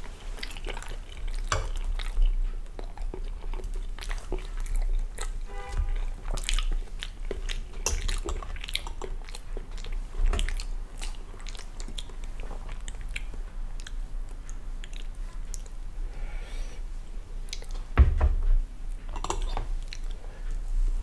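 Close-miked chewing and swallowing of soft pancake, with small wet clicks and crackles, over a steady low hum. There are light clinks of a knife and fork cutting the pancake, and a sharper thump about 18 seconds in.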